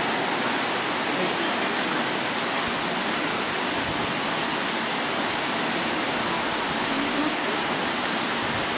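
Steady rush of water as the water-balanced cliff railway car empties its ballast tank at the bottom station, lightening the car so it can be drawn up the cliff.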